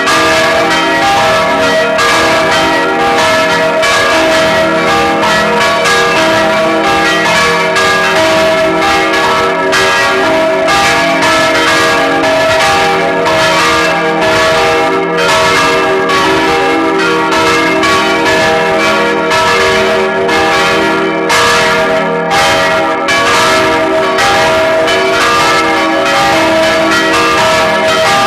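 Full peal of four swinging church bells: three baroque bells cast by Anselm Speck of Heidelberg in 1788 and a small bell from 1988. Their strokes fall thick and irregular, overlapping, while the tones of all four ring on without a break.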